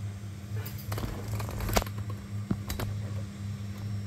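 Steady low hum of the Elegoo Neptune 4 Pro 3D printer's fans as the printer sits heating up, broken by a scatter of clicks and knocks between about half a second and two seconds in, and twice more a little later.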